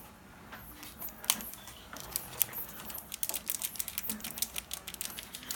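Foil Pokémon booster pack being handled, with light crinkling and many small clicks that grow dense from about halfway in.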